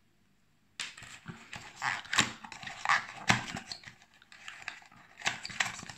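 Hands rummaging in a cardboard phone box and its packaging: irregular rustles, scrapes and small knocks, starting about a second in.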